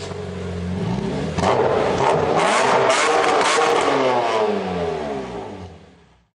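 A car engine revving hard. It grows louder about a second and a half in, with its pitch sweeping up and down, then fades out near the end.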